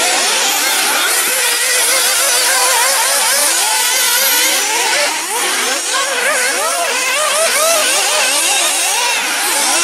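Several 1/8-scale nitro off-road RC buggies racing, their small two-stroke glow engines revving up and down in overlapping whines that keep rising and falling as they accelerate and brake.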